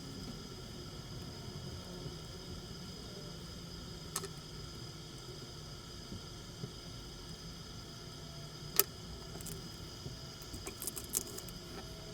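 Small parts being handled during a teardown of a radio-control car: a few isolated light clicks and taps, the sharpest about nine seconds in and a short cluster near the end, over a steady faint electrical hum.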